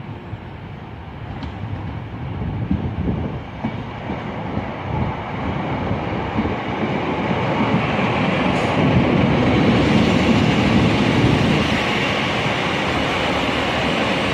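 Two coupled Class 153 diesel railcars drawing in alongside the platform: their underfloor Cummins diesel engines and steel wheels on the rails. The sound grows louder over the first several seconds as the units approach, then holds steady as they pass close by.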